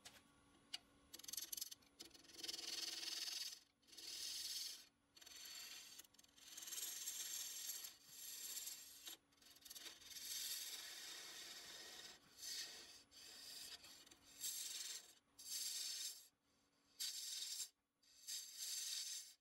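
Wood lathe running with a faint steady hum while a tool or abrasive is pressed against the spinning ash workpiece in repeated scratchy passes of one to two seconds, with short breaks between them.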